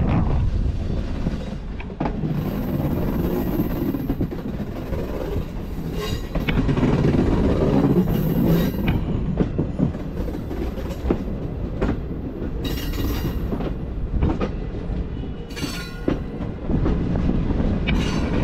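Green Line Express passenger train running on the rails: a steady heavy rumble with scattered wheel clicks and knocks, and several brief high-pitched wheel squeals.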